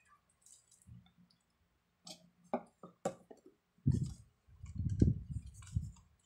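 Handling noise from unpacking a smartphone: a few sharp clicks, then a cluster of dull knocks about four seconds in, as the phone is set on its cardboard box and the box and its small white accessory are handled.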